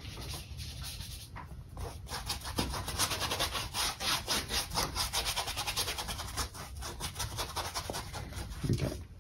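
Paintbrush scrubbing acrylic paint onto a canvas in quick back-and-forth strokes, about five or six a second, getting louder about three seconds in.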